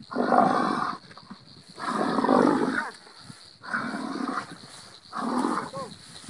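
A cow blowing hard through its nose at a large constricting snake: four loud, breathy blasts, each under a second, about every second and a half.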